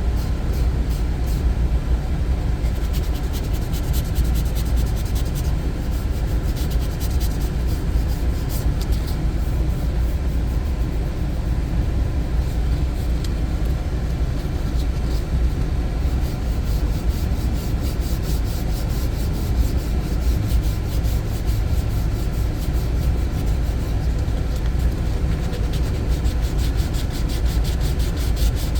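Steady sanding of the filler compound on a vinyl center console repair, sandpaper scrubbing continuously to level the high spots.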